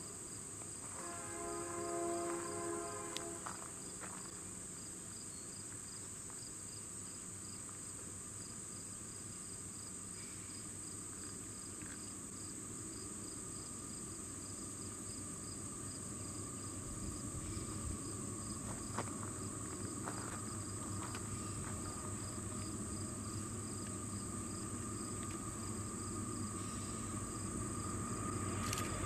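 Steady chorus of crickets and other insects. About a second in, a Union Pacific locomotive horn sounds for about two seconds, and then the low rumble of the approaching train grows steadily louder.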